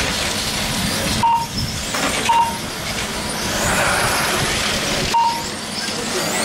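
1/8-scale brushless electric on-road RC race cars running on the track, their motors whining up and down with tyre noise as they pass. Three short beeps sound along the way, about a second in, two seconds in and near the end.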